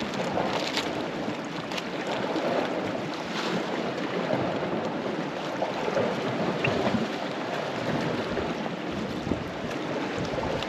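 Small sea waves washing against a rocky shore, a steady noisy wash, with wind noise on the microphone.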